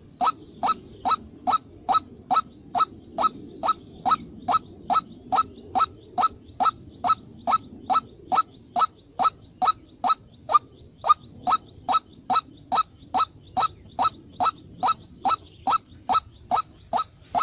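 A short, rising, chirp-like bird call repeated very evenly, about two and a half times a second, with no break.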